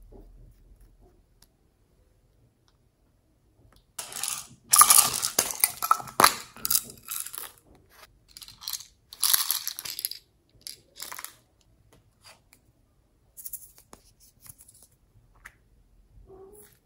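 Small plastic containers and slime add-ins being handled: crisp crackling and rattling in bursts, loudest about five to seven seconds in, with a sharp click near the middle of that stretch.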